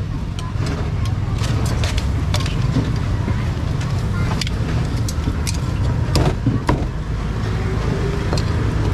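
Meat cleaver chopping roast poultry on a thick wooden chopping block: sharp knocks at uneven intervals, about one a second. Underneath runs a steady low rumble of street traffic.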